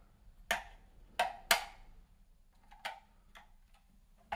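Sharp clicks of the Logitech MX Ergo trackball's magnetic metal base plate snapping against its plastic underside: three loud clicks within the first second and a half, then a few fainter clicks and another sharp knock near the end as the trackball is set down on the desk.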